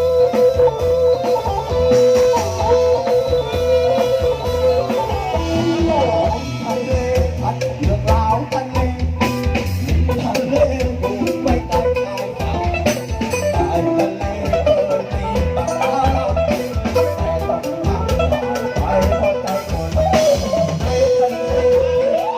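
Thai brass band (trae wong) playing: a held, sliding melody line over a steady drum beat.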